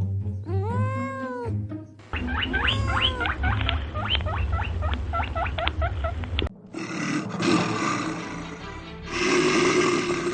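A cat's meow, one drawn-out call, then background music of quick short notes over a bass line, then a rough, noisy growl that swells near the end.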